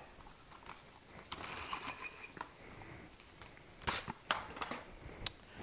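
Plastic cling wrap being pulled off its roll with a faint crinkling rustle, then torn off at the box's cutting edge with a few sharp crackling clicks, the loudest about four seconds in.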